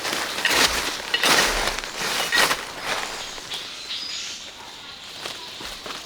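Irregular rustling and crunching strokes of dry material, several close together in the first half and quieter after about three seconds.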